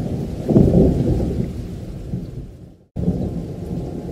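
Thunder rumbling through steady rain, swelling about half a second in and dying away, then cut off abruptly just before three seconds and starting again.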